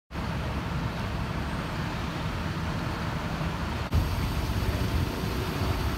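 Steady vehicle noise from trucks and traffic: a low rumble under an even hiss, with a short break about four seconds in.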